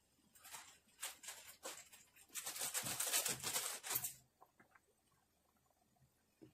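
Metal spoon stirring and scraping against a steel wok of simmering egg soup: scattered scrapes and clicks, then a dense stretch of scraping from about two and a half to four seconds in, then only small clicks.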